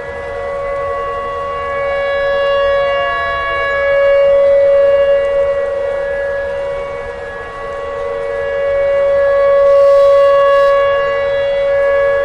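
Outdoor tornado warning siren sounding a steady wailing tone, its loudness swelling and fading twice.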